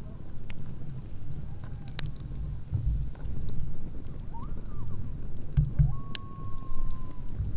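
Campfire crackling with a few sharp pops over a low rumble. Faint distant calls can be heard: a short wavering one about halfway through and one long, slightly falling note near the end.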